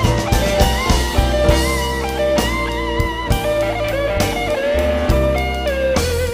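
Instrumental blues-rock music: an electric guitar plays a lead line with bent notes over bass and a drum kit.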